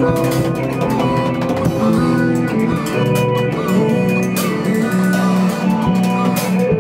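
Improvised instrumental rock jam: a bass line of held notes moving step by step under steady guitar and synth tones, with drums and cymbals hitting throughout.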